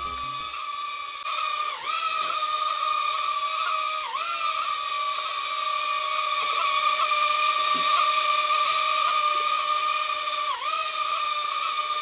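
Small toy quadcopter hovering, its propeller motors giving a steady high-pitched whine that dips briefly in pitch three times.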